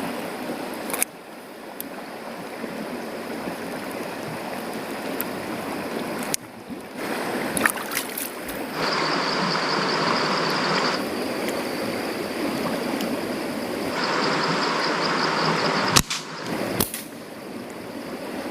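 Flowing river water, high with rain, as a steady rush that jumps in level and character at several abrupt cuts. Some stretches carry a thin, high, steady whine over the water.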